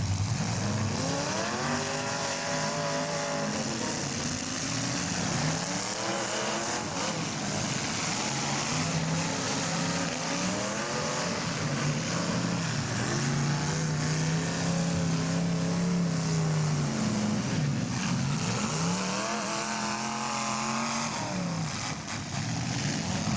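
Demolition derby cars' engines revving up and dropping back again and again, about five swells in pitch, over steady engine noise.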